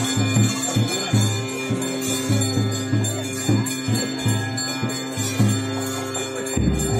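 Traditional nema ritual music: jingling bells ringing steadily over a low, pulsing pitched part that breaks off and returns about twice a second, and shifts near the end.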